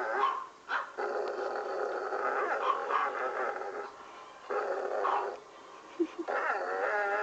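Small dog whining and howling in a few long, drawn-out tones with short breaks between them; the last tone wavers up and down in pitch.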